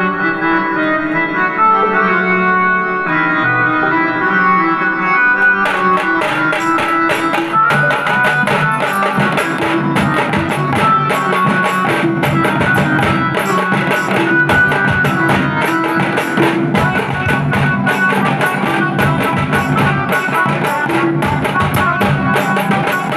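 Tasa band playing: an amplified electronic keyboard melody over loudspeakers, joined about five and a half seconds in by dhol and tasa drums beating fast and densely under the tune.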